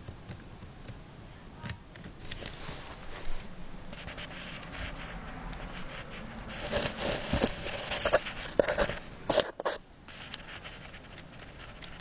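Hard plastic K'nex pieces of a home-built K'nex rifle clicking, scraping and rattling as its trigger mechanism is pressed and worked by hand. The sharp clicks and rubbing come thicker in the second half.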